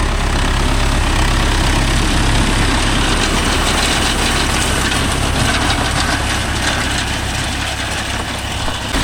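Mahindra Yuvo Tech Plus 585 4WD tractor's diesel engine running steadily while driving a Bharat baler.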